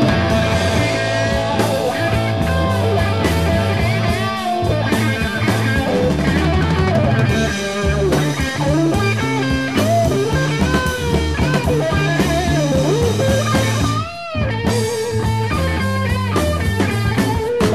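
Instrumental 1970s Italian progressive rock: a band of electric guitar, bass and drums playing, with bending lead lines and a short break about fourteen seconds in.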